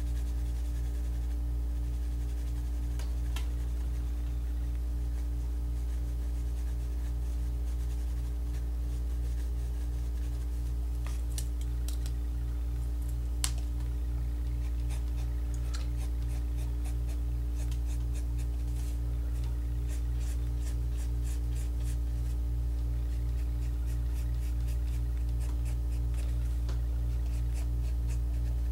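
Pencil strokes scratching on drawing paper while shading, faint and intermittent, coming thicker in the second half. There is a steady low hum with a slight throb throughout, and one sharp click about halfway through.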